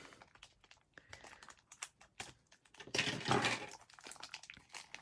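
Clear plastic wrapping crinkling in the hands as it is pulled off a pair of small doll shoes, in scattered small crackles with a louder rustle about three seconds in.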